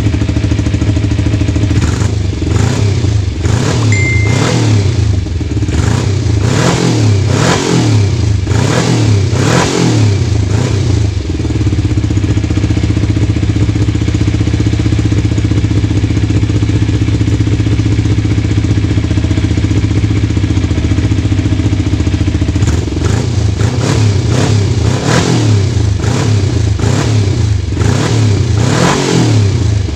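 Motorcycle engine, most likely the Kawasaki Ninja 250's parallel-twin, running and being revved in a series of quick throttle blips. It settles to a steady idle for about ten seconds, then is blipped repeatedly again near the end.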